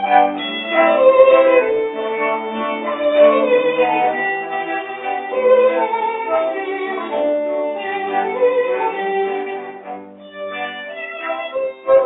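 Instrumental background music led by a violin, with a brief dip in loudness about ten seconds in.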